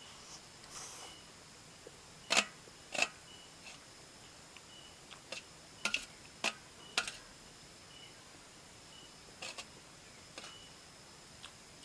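Eating noises: sharp clicks and clinks of utensils against a bowl, about eight over the stretch, the two loudest close together about two seconds in. Under them are faint steady high tones and short, regularly repeating chirps.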